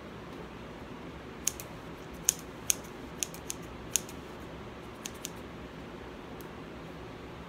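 Scissors snipping through synthetic curly wig hair: about eight quick, sharp snips starting about a second and a half in and ending around the five-second mark, over a faint steady room hiss.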